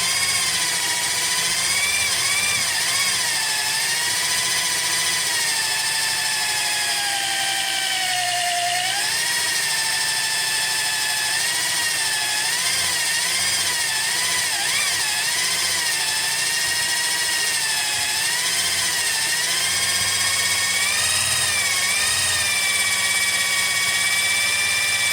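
Electric drill spinning a dry sycamore spindle against a sycamore baseboard to make a friction-fire coal: a steady whine whose pitch wavers up and down, dipping briefly about eight seconds in.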